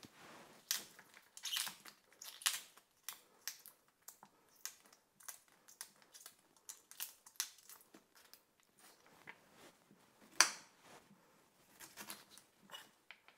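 Tough outer leaves being snapped off a large artichoke by hand: a run of irregular crisp snaps and tearing sounds, the loudest about ten seconds in, with a knife cutting into the artichoke near the end.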